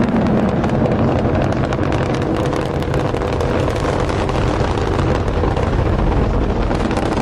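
Space Shuttle Discovery's two solid rocket boosters and three main engines firing in ascent: a loud, steady rocket rumble full of dense crackle.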